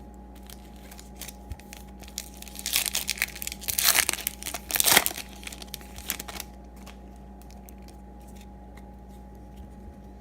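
A 2018 Topps Series 2 baseball card pack wrapper being torn open and crinkled: a few seconds of crackly tearing and crinkling that starts about two and a half seconds in, is loudest near the middle and stops at about six and a half seconds.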